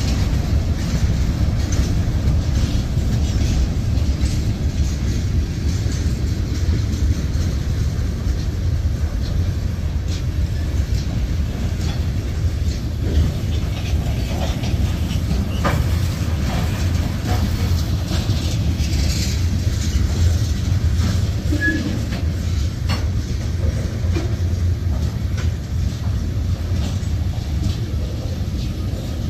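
Freight cars (covered hoppers and boxcars) rolling past on steel wheels: a steady low rumble on the rails, broken by scattered clicks and clanks as the wheels cross rail joints.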